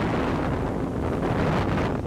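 Wind buffeting the microphone on a motorboat under way, with the boat's motor running and water rushing past the hull in a steady low roar.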